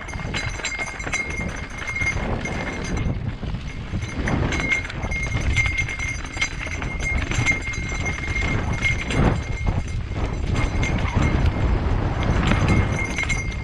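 Mountain bike rattling and clattering over a rocky dirt trail at speed: tyres crunching on loose rock and dirt, frame and chain knocking on every bump, with wind rumbling on the microphone. A thin high whine comes and goes.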